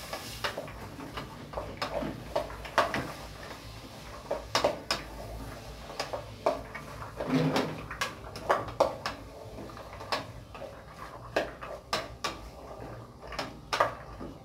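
A spoon knocking and scraping against a metal pot as diced vegetables are stirred while sautéing: irregular sharp clicks, about one or two a second.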